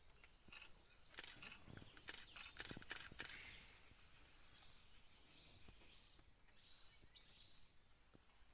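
Near silence: faint outdoor ambience with a steady high hiss and a few soft clicks in the first three seconds.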